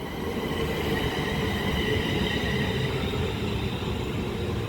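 Class 350 Desiro electric multiple unit running slowly into the platform: a steady rumble of wheels on rail, with a faint high whine over it.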